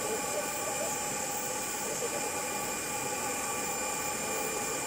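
Compact pedicure dust extractor fan running steadily: an even rushing hiss with a thin high whine.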